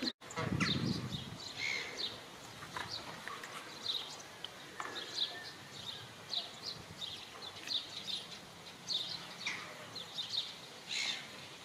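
Birds chirping outdoors: short high chirps at irregular intervals, about one a second, over faint steady background noise, with a brief low rumble just after the start.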